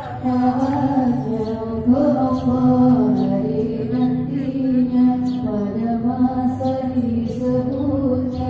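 Music with a singing voice holding long, drawn-out notes that move slowly from pitch to pitch.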